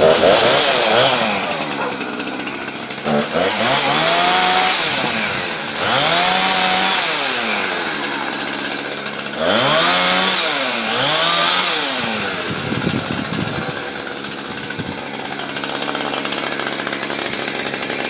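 Two-stroke gas chainsaw revving up again and again as it cuts fallen tree limbs, its engine speed rising and sagging with each cut and dropping back between them. It settles into a steady idle for the last few seconds.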